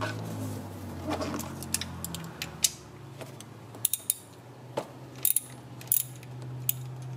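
Ratchet wrench on a socket extension clicking in short irregular runs as it is swung back and forth, loosening the fixing bolt of an engine's camshaft position sensor.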